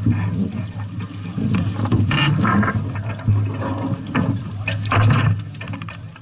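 Water splashing and irregular clicks and knocks of gear aboard a small sailboat, over a steady low hum.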